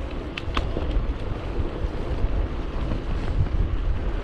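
Wind buffeting the microphone of a camera on a moving bicycle, a steady low rumble. Two short, sharp high sounds come about half a second in.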